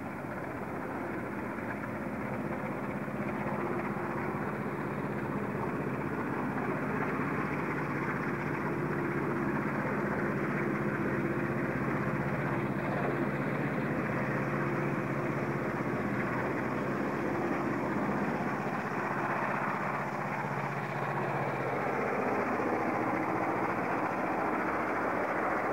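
Old red Sydney suburban electric train approaching and passing: a steady running noise with several held low hums that slowly grows louder. The hums fade out about 22 seconds in as the carriages go by.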